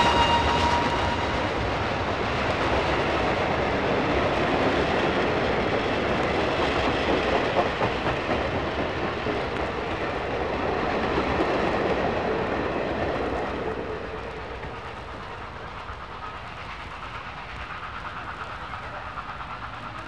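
Steam passenger train behind a K2 locomotive rushing past, a steady rumble with rail clatter; its chime whistle cuts off in the first moment. The noise fades about 14 seconds in, leaving the train faint and distant.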